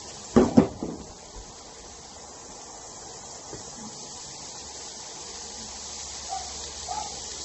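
Julienned carrots sizzling in oil in a small pan on a gas burner, a steady hiss, with a few loud knocks of the pan about half a second in.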